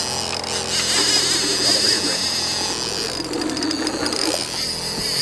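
Trolling reel being cranked fast against a hooked king salmon, its gears and line guide whirring with a rapid clicking, over the steady running of the boat's motor.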